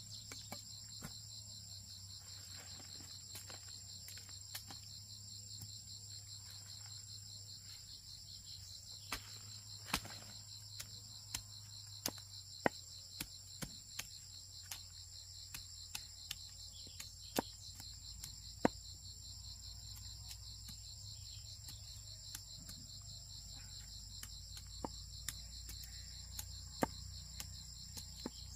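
Insects trilling in a steady high-pitched chorus over a low steady hum, with scattered sharp clicks and knocks throughout; the loudest knocks come about twelve and nineteen seconds in.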